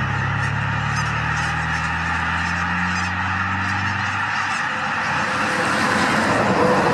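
A large flock of geese honking continuously, many calls overlapping into a dense wall of sound. A low steady drone sits underneath and fades out about four seconds in.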